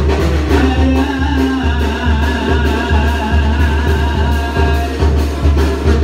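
A live band plays a waltz: deep bass notes about twice a second under a wavering melody.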